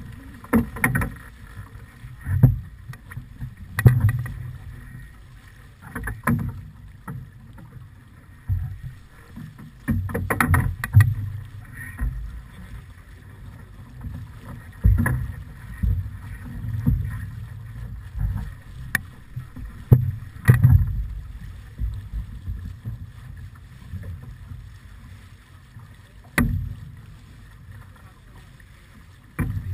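Wind buffeting the camera's microphone and water rushing past the hull of a heeled sailing keelboat: an uneven rumble, with sudden louder gusts or slaps every few seconds.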